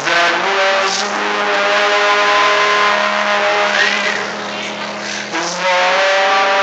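A male singer with piano accompaniment, performed live, holding long sustained notes that move to new pitches about five seconds in.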